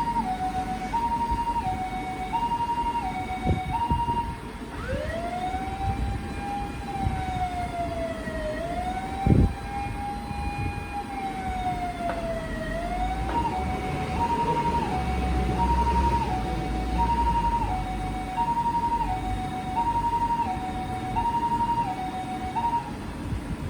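Ambulance siren from a first-generation Toyota HiMedic's SAP50 siren amplifier, sounding the Japanese two-tone hi-lo 'pee-po' pattern. About five seconds in it switches to a single wailing tone that slides slowly down twice, then goes back to hi-lo about thirteen seconds in. A low thump sounds about nine seconds in.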